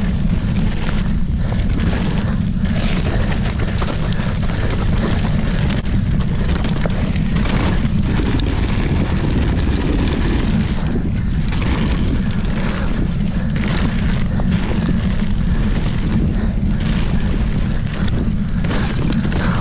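Downhill mountain bike ridden fast down a dirt and leaf-litter trail, heard from a chest-mounted camera. Heavy wind rumble buffets the microphone, over tyres rolling on the dirt and leaves and the bike rattling over bumps.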